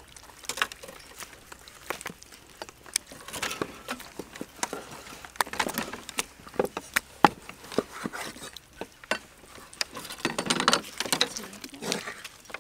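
Cleaver cutting raw pork on a thick wooden chopping board: irregular sharp knocks of the blade striking the wood, one louder knock about seven seconds in.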